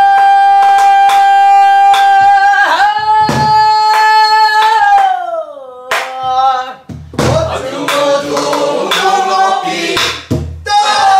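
Pansori singing: a woman's voice holding long sustained notes, with a slow gliding fall about five seconds in, over a buk barrel drum beaten with a stick, deep strokes on the head and sharp taps on the wooden rim. From about seven seconds in, several voices sing together.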